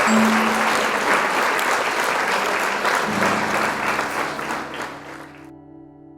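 Applause, fading and then cutting off near the end, with a held music chord coming in about halfway through.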